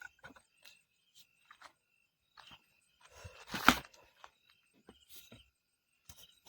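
Faint scattered crackles of dry leaf litter with one louder crunch about three and a half seconds in, over a faint steady insect tone.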